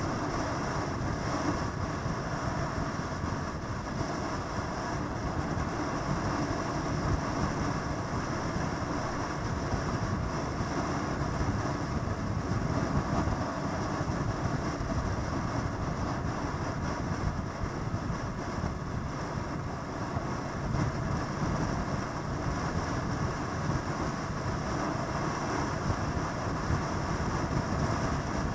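Steady rumble of motorcycle engines running, even and unbroken.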